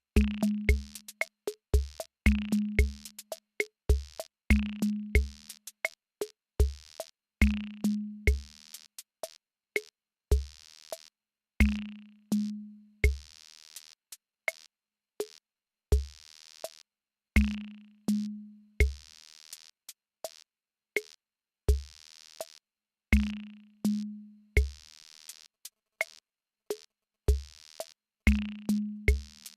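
Electronic drum machine playing a rhythmic pattern of deep kick hits, a short low-pitched drum that dies away, sharp clicks and hissy snare and hi-hat-like noise hits, a few of them held for about a second.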